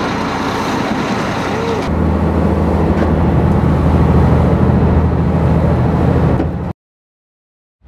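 Fishing boat's engine running under way: a steady low drone under a rushing noise. It gets louder about two seconds in and cuts off abruptly near the end.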